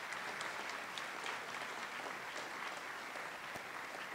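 Steady applause from an audience, many hands clapping together.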